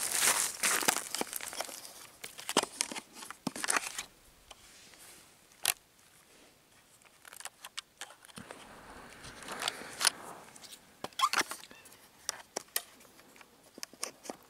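Footsteps crunching and rustling through dry grass and pine litter, in uneven bursts with a quieter stretch in the middle, plus a few sharp clicks.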